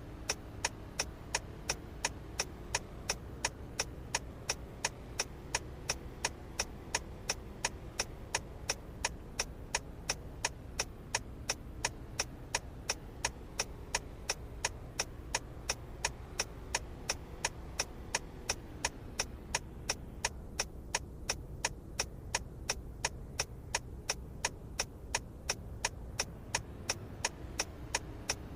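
Car turn-signal relay clicking at an even rhythm of about two and a half clicks a second, over a low steady hum.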